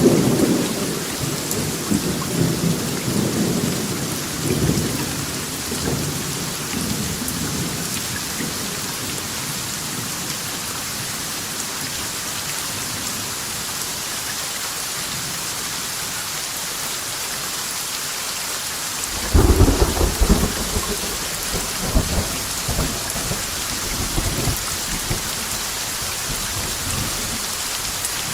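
Steady rain with thunder. A low rolling rumble fades over the first several seconds, then a sudden louder thunderclap about two-thirds of the way through rolls on in rumbles for a few seconds.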